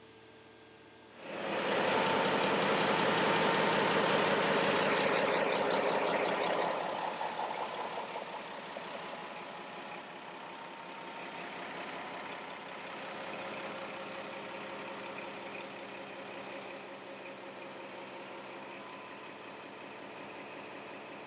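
A 1,380-horsepower Caterpillar marine diesel main engine firing up: it starts suddenly about a second in, runs loud for about five seconds, then settles to a steady, quieter idle.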